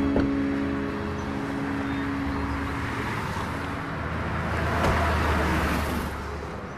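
Steady city street traffic, swelling briefly about five seconds in as a vehicle goes by, with a car door shutting at about the same moment. A few held music notes fade out in the first three seconds.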